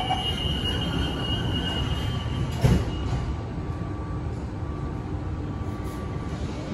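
MRT train doors and platform screen doors sliding shut, with a high steady warning tone that stops as the doors close with a loud thud about two and a half seconds in. The stationary train's steady low rumble continues after.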